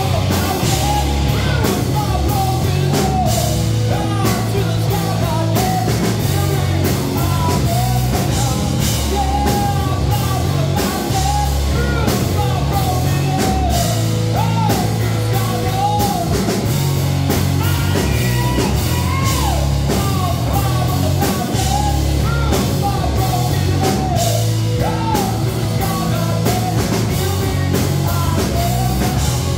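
Live rock band playing loud: a male singer over electric guitar, bass guitar and a drum kit.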